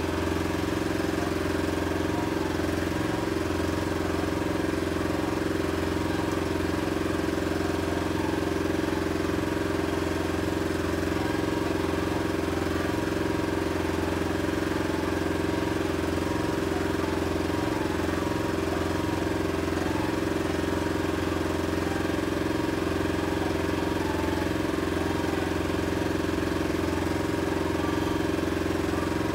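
Petrol outboard motor on a small beach fishing boat idling steadily, with no change in revs.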